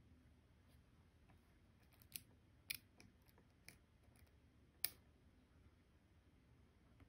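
Faint, sharp clicks and ticks from cross-stitching by hand, needle and floss worked through 14-count Aida fabric. There are about five, between two and five seconds in, and the last is the loudest.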